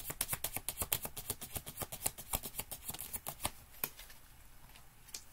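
Tarot deck being shuffled by hand: a quick run of crisp card clicks that thins out and stops about four seconds in.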